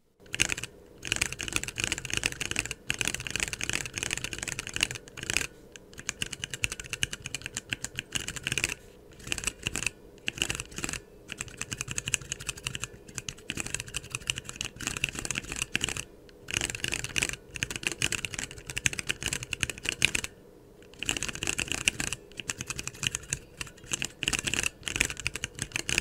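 Cherry MX Brown tactile mechanical keyboard switches, stock and spring-swapped with lighter springs, typed on in fast runs of keystrokes with a few short breaks.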